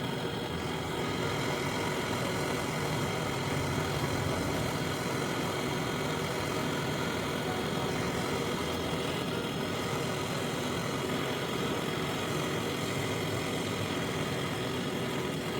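Brazing torch flame burning steadily while the filter drier is brazed onto the refrigeration line. It cuts off right at the end.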